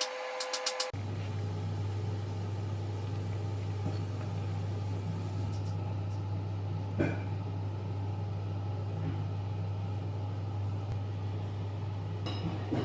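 A steady low mechanical hum, with one faint click about seven seconds in. It is preceded by about a second of a high steady tone with rapid clicking, which cuts off abruptly.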